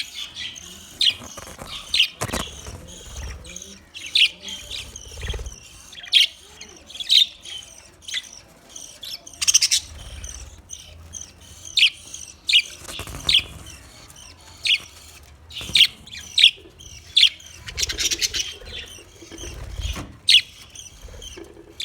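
Budgerigars chirping and chattering: sharp high chirps come every second or so over continuous warbling.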